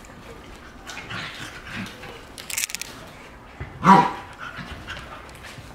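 An adult dog and puppies scuffling in rough play, with panting and small noises, and one short, loud yip about four seconds in.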